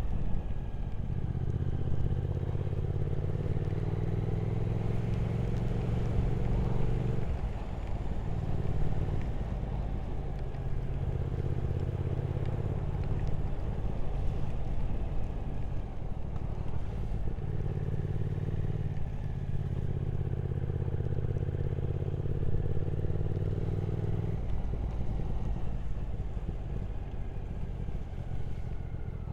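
Triumph Speed Twin 1200's parallel-twin engine running under way at a steady pace, its note easing and picking up again several times, with steady wind noise from riding.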